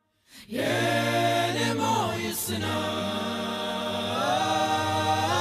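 Background music: a song with long sung notes that slide in pitch now and then, over a steady low hum. It starts after a brief silence about half a second in.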